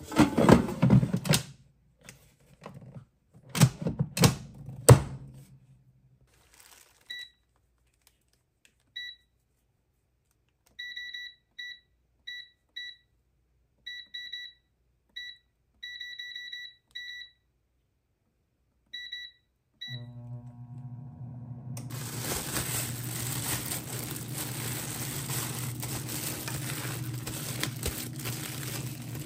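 Gourmia air fryer: a few loud clunks as its basket goes in, then a string of short beeps from its touch-panel controls. About two-thirds of the way through, its fan starts up and keeps running with a steady hum.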